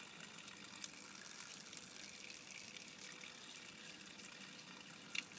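Quiet outdoor background: a faint, steady hiss with no distinct source, and a brief high-pitched blip near the end.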